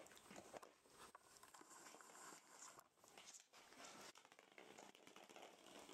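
Faint rustling and light scattered clicks from rough collie puppies playing: mouthing and scrabbling at a fleece blanket and padding across a wooden floor.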